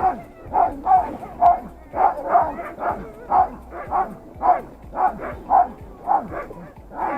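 Harnessed sled dogs barking over and over, about two barks a second, with some yips: the excited barking of a team straining to go at the start line.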